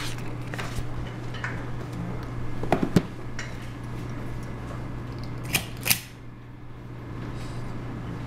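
Paper pages and stiff document folders handled on a desk, with faint rustling and a few sharp clicks: a cluster about three seconds in and two more, half a second apart, near six seconds. A steady low hum runs underneath.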